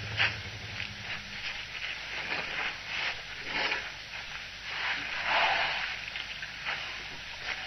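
Elephants drinking at a waterhole: irregular splashing and sloshing of water from their trunks and feet, loudest about five seconds in.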